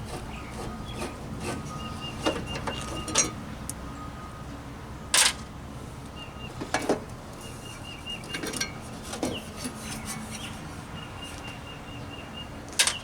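Scattered sharp clicks and metallic clinks of hand tools and small metal parts as Torx screws and the latch hardware are worked on a Jeep tailgate, with a few faint, brief high whines among them.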